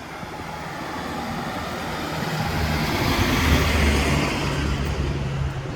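A road vehicle passing close by: a low engine hum and rushing tyre and road noise swell to a peak about three and a half seconds in, then fade away.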